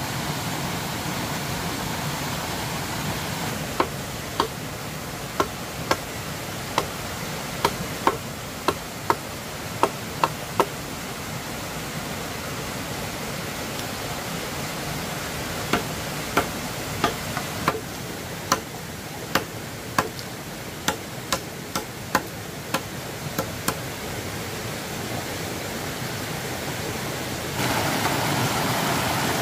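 Two runs of about a dozen sharp knocks each, one to two a second, like a hand tool striking repeatedly. Under them runs a steady rushing noise, which steps up louder near the end.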